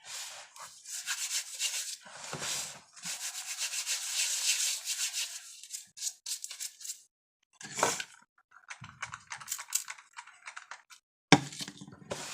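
A baking soda and citric acid mixture being stirred and rubbed in a bowl: a dry, gritty scraping in long strokes, then shorter scrapes and clicks. A sharp knock comes about eleven seconds in.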